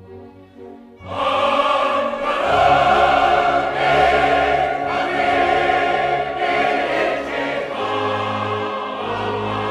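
A choir singing classical music, entering loud and full about a second in after a quiet passage.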